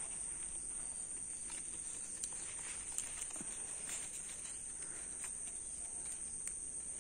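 Steady high-pitched chorus of crickets, with faint rustles and ticks from guava leaves being handled in the middle.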